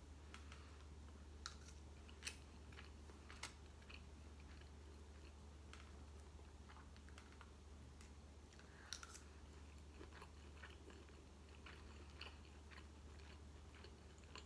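Faint eating sounds: a metal fork clicking and scraping in a takeout tray of seafood rice, and quiet chewing, over a low steady hum. The clicks are scattered and small, the sharpest about two seconds in, with a short cluster about nine seconds in.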